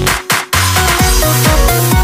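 Electronic dance music: after a short break in the first half second, a steady kick-drum beat with held synth chords comes in.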